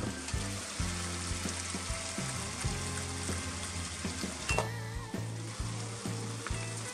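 Carrot, shimeji mushrooms and konnyaku noodles sizzling as they stir-fry in sesame oil in a frying pan.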